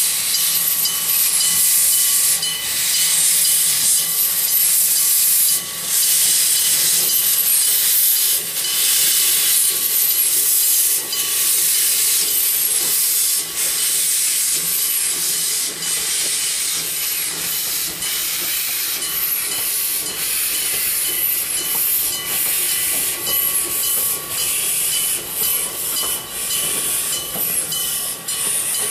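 1909 Porter steam locomotive hissing steadily as it moves off, steam jetting from around its cylinders while it pulls its passenger cars past.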